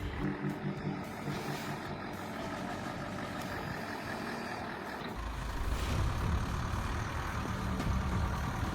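Heavy machinery engine running steadily, its low rumble growing stronger about halfway through.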